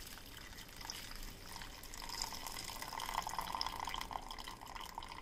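Thin stream of hot kashayam (ginger and turmeric decoction) being strained and poured into a stainless steel pot, a faint trickling splash that grows fuller about two seconds in as the liquid collects.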